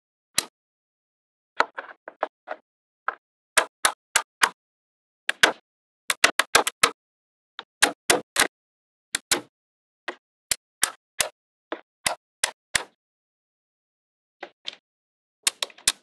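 Small magnetic balls clicking as slabs of them are snapped into place: sharp, irregular clicks, sometimes several in quick succession, with silence between.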